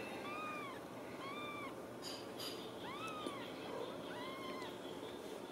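Very young Ragdoll kittens mewing: about five short, high mews a second or so apart, each rising and then falling in pitch.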